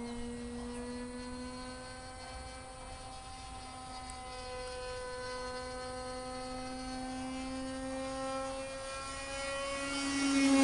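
Radio-controlled model airplane's .46 engine flying overhead: a steady, high-pitched drone whose pitch drifts slowly, growing louder near the end.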